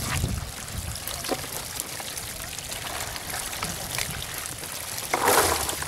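Water running down a cut in a mud bank and pouring into a bamboo fish-catching basket: a steady trickling pour with small scattered splashes, briefly louder about five seconds in.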